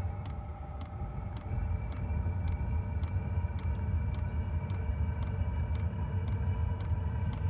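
5 kW Chinese diesel air heater lighting up: its fuel pump ticks about twice a second over a steady fan whine, while a low rumble grows louder as the burner catches.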